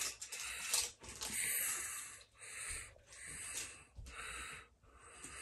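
A person breathing heavily close to the microphone: a run of noisy, hissing breaths in and out, roughly one a second.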